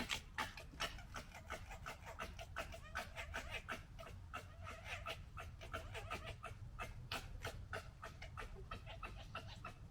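Red foxes gekkering: a fast, stuttering run of throaty clicking chatters, the call foxes make when squabbling or fighting.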